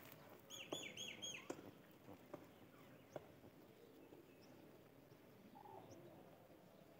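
A small bird chirping a quick run of four or five high, falling notes about half a second in, with a few faint single chirps later. Under it, faint scattered clicks of a rabbit chewing fresh green stems and leaves.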